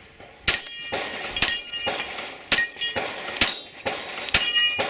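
About five gunshots, roughly a second apart. Each is followed by the clang and ring of a steel target being hit.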